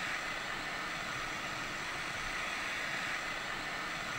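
ATTEN ST-862D hot air rework station's handpiece fan blowing a steady rush of air during its cool-down cycle, before the station shuts off.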